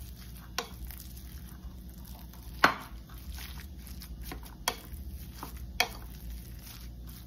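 Spatula mixing raw ground beef in a glass bowl: soft squishing of the meat, broken by several sharp taps of the spatula against the glass, the loudest about two and a half seconds in.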